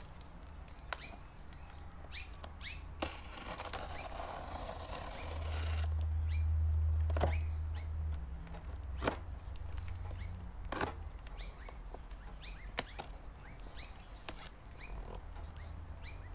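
Birds chirping over and over in short rising calls, with sharp knocks and clicks from a cardboard box and a steel BBQ plate being unpacked, and a burst of rustling packaging about four seconds in. A low rumble swells near the middle and fades.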